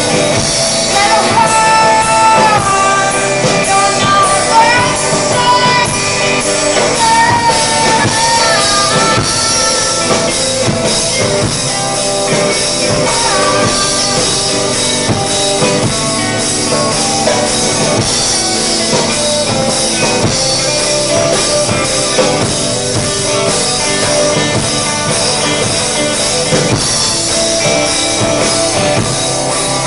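Live rock band playing: electric guitars and a drum kit, with singing.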